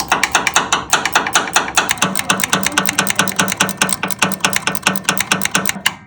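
Rapid, evenly spaced knocks on metal, about seven a second, from work on a steel bracket; they stop abruptly near the end.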